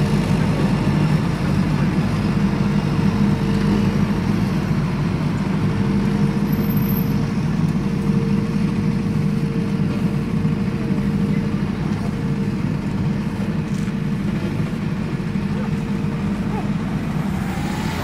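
A motor vehicle's engine running steadily with an even low rumble.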